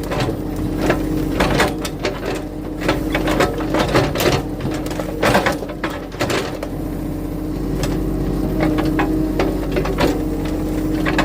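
Compact digging machine's engine running steadily, with a string of knocks and clanks from the bucket working dirt out from under a tree's root ball; the knocking stops about two-thirds of the way through, leaving the steady engine hum.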